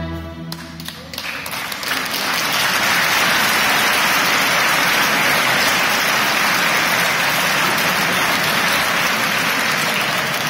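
The choir's last held chord stops at the very start, then a church congregation's applause builds up over about a second and goes on steadily.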